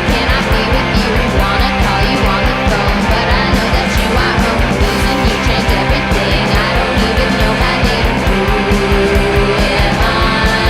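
Punk rock band playing loud, with electric guitar over a fast, steady beat.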